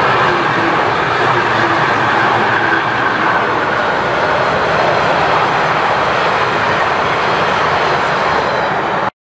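Freight train of double-deck car-transporter wagons rolling past at speed: a steady, loud noise of wheels running on rail, with a faint high whine about two seconds in. The sound cuts off suddenly near the end.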